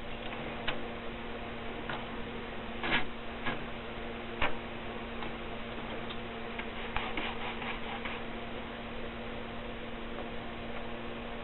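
Triumph Favorit Contessa typewriter mechanism clicking irregularly, with single sharp clacks and a quick run of several key strikes near the end, over a steady low hum.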